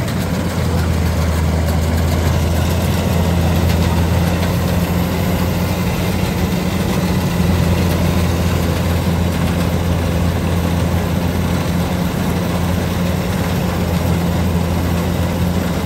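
Combine harvester's diesel engine running steadily with a low, even hum.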